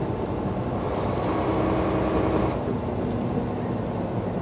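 Semi truck's engine and road noise heard inside the cab while driving, a steady drone. A hum in it steps down in pitch about two and a half seconds in.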